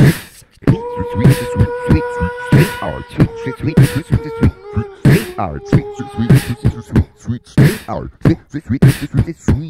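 A cappella loop-station music built from layered vocals: a steady beatboxed beat with long held sung notes over it. It comes in about half a second in, after a brief dip.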